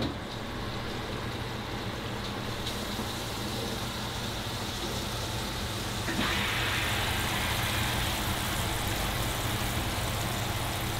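Breaded panfish fillets sizzling in hot oil in a skillet. The sizzle gets louder about six seconds in, over a steady low hum.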